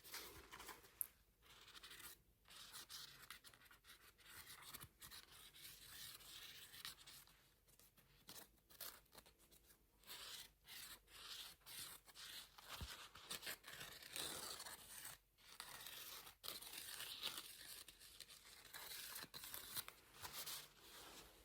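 Makeup brush bristles brushed and scratched over a sponge close to the microphone: quiet, irregular hissy strokes with brief pauses between them.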